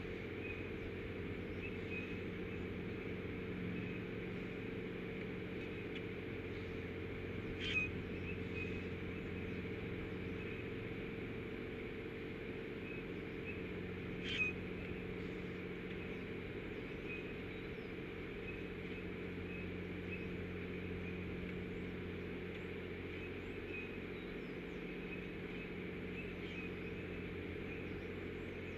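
Steady low hum with faint, scattered small-bird chirps. Two short sharp chirps stand out, about a quarter and halfway through.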